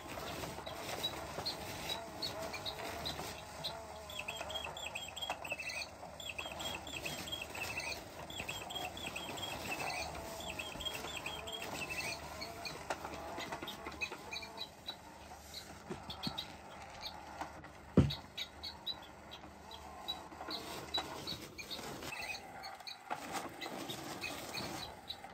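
Electronic cat toy giving quick runs of short, high bird- or mouse-like chirps over a wavering hum. A single sharp knock sounds about 18 seconds in.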